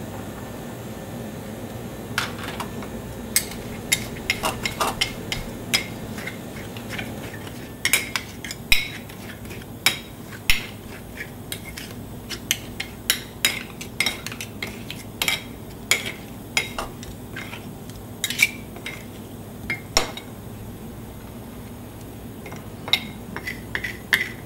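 Metal spatulas clacking and scraping on a chilled ice-cream plate as ice cream is chopped and mixed, in quick irregular strokes that come thicker about a third of the way in.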